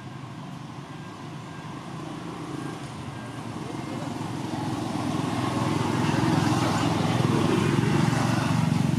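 A motor vehicle engine running steadily and growing louder as it approaches, loudest in the last few seconds.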